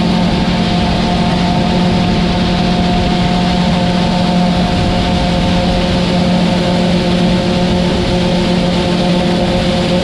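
Combine harvester running at a steady working pitch, a constant mechanical hum with several held tones, while shelled corn kernels pour from the fill auger into its grain tank under an even rushing noise.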